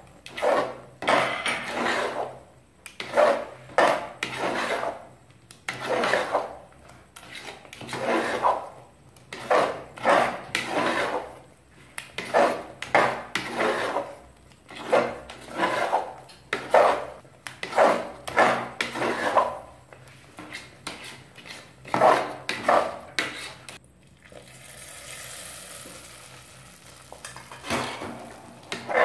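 A metal ladle scraping round a pressure cooker as thick mung-bean halwa is stirred in ghee, about one stroke a second. Near the end the stirring pauses for a few seconds and the hot ghee sizzles in a steady hiss.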